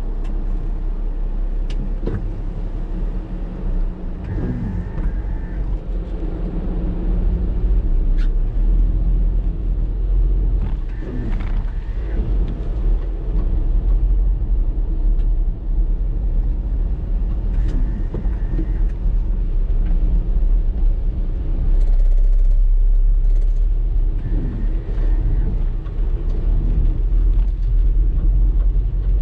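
Typhoon wind buffeting the microphone in a loud, steady rumble that swells and eases in gusts, over the roar of storm surf.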